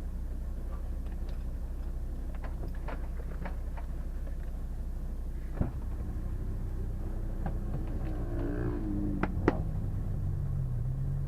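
Mitsubishi Pajero competition car's engine heard inside the cabin, running with a steady low rumble amid scattered clicks and clatter from the car over the course. There are two sharp knocks, about five and a half and nine and a half seconds in, and near the end the engine note falls as the revs drop.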